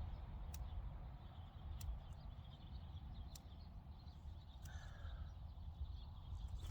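Brush pile fire crackling faintly, a scatter of sharp pops, under low wind rumble on the microphone. A short faint call, like a distant bird, about two-thirds of the way through.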